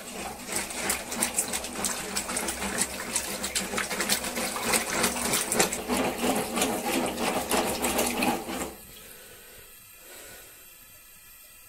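A long wooden stick stirring milk in a large metal cauldron for cheese-making: quick, irregular sloshing and swishing with rapid clatter. It stops suddenly about three-quarters of the way through, leaving only a faint background.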